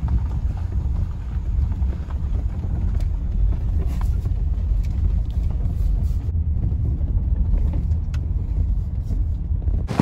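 Car driving on a rough gravel road, heard from inside the cabin: a steady low rumble of tyres and engine, with a few faint clicks.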